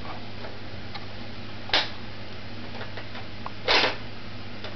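Light plastic clicks and taps from a toddler's pop-up toy being played with, over a steady low hum, with two brief louder noisy bursts about two and four seconds in.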